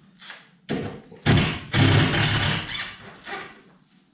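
A run of knocks and scraping handling noise: a few short knocks, then a louder, longer scrape-and-clatter from about a second in to past halfway, and a lighter knock near the end.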